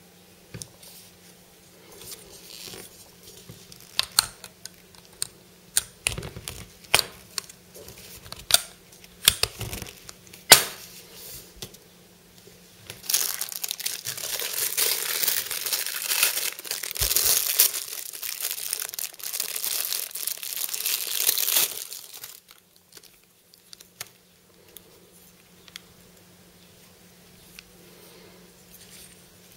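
Clear plastic bag packaging crinkling and being torn open, a dense crackling rustle lasting about nine seconds in the middle. Before it comes a string of sharp taps and clicks from the plastic spring toys being handled and set on the table.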